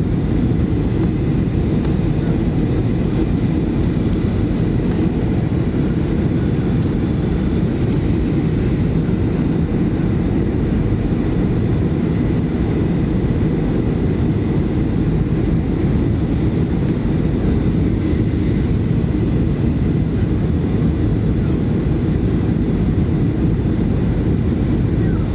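Steady, loud cabin noise inside a Boeing 737-700: the rumble of its CFM56 turbofan engines and rushing air, with a faint thin whine held throughout.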